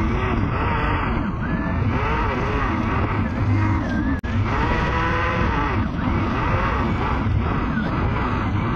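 Kite buggy rolling fast over asphalt: steady tyre rumble and wind buffeting on a low-mounted camera, with rising and falling tones over it. The sound cuts out for an instant about four seconds in.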